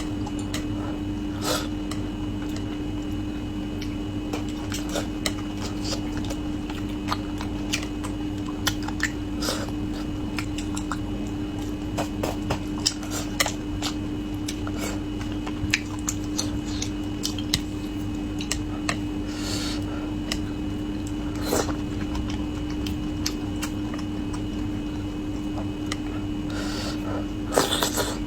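Close-up eating sounds of braised fish: irregular clicks of chopsticks against a dish mixed with soft chewing and biting, over a steady background hum.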